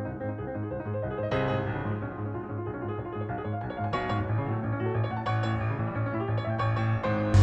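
Background piano music, a gentle melody of struck notes over a held bass.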